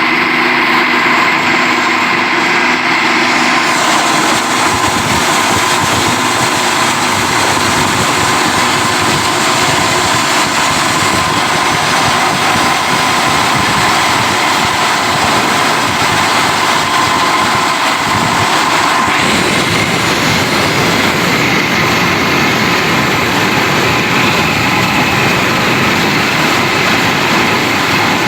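PET bottle grinder (plastic granulator) running loudly, with a dense rattle over a steady whine from the machine. The sound changes character about four seconds in and again a little before twenty seconds.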